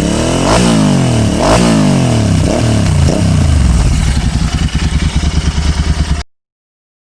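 Royal Enfield Interceptor 650's 648 cc parallel-twin engine revved in about four quick throttle blips through twin Barrel Atom slip-on exhausts with the dB killers removed, the pitch rising and falling each time. It then drops back to a pulsing idle before the sound cuts off suddenly about six seconds in.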